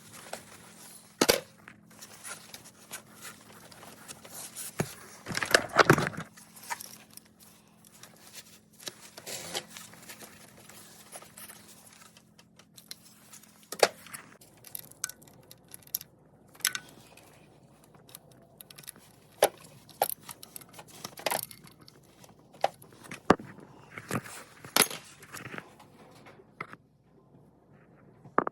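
Hand tools clicking, tapping and scraping against metal and hose parts while working in an engine bay, with scattered sharp knocks and a longer rustling, scraping stretch about six seconds in. A faint steady hum sits under the first half.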